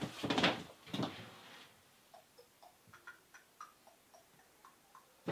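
A short burst of noise just after the start, then faint, irregular light clicks and ticks, a couple to a few each second.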